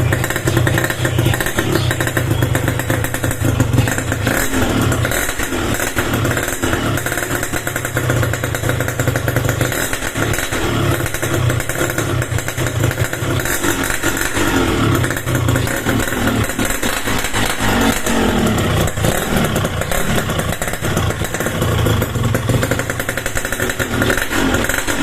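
Yamaha RX King's 135 cc two-stroke single-cylinder engine running, its revs rising and falling a few times: a test run after a new connecting rod and crankshaft bearings have been fitted.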